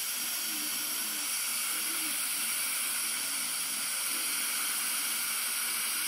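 Dental suction tube in the patient's mouth giving a steady, even hiss as it draws off air and saliva during soft-tissue surgery.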